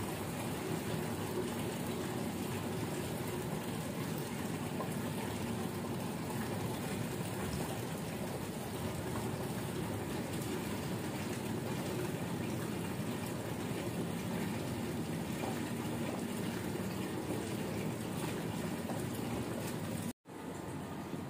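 Steady rushing noise like running water, even throughout, with a brief dropout near the end.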